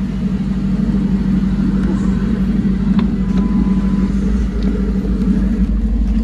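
Roush-built New Edge Ford Mustang's V8 idling steadily, with a single sharp click about three seconds in.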